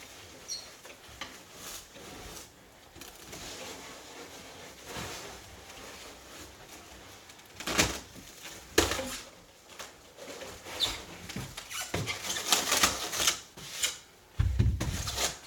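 Handling noises from working on a pinball machine: scattered clicks, knocks and rubbing, sparse at first and busier in the second half, with a heavy low thump near the end.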